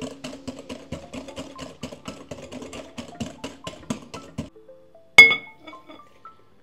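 Wire whisk beating a thick butter, sugar and egg mixture in a glass bowl: a quick run of clicking strokes, about six a second, that stops about four and a half seconds in. About a second later a single sharp glass clink rings briefly, the loudest sound, with background music of rising notes.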